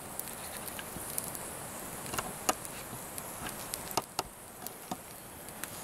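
Steady high-pitched drone of insects in summer woods, with scattered sharp crackles and snaps from a small stick campfire burning under a hanging pot.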